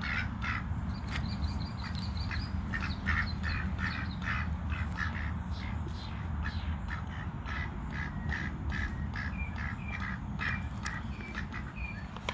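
Ducks quacking over and over in short calls, a few each second.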